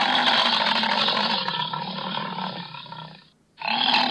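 Bison bellowing: a long, rough roar that fades toward its end, then a second bellow begins after a short break near the end.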